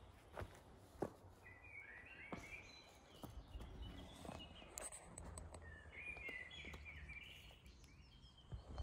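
Faint birdsong: two bursts of chirping phrases about four seconds apart. A few soft footstep crunches on dry leaf litter come in the first second or so.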